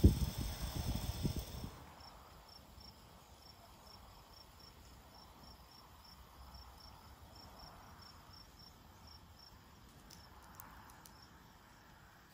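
Loud low rumbling noise for about the first two seconds, which cuts off abruptly. After it an insect chirps in a steady rhythm, about three or four short high chirps a second, for most of the rest.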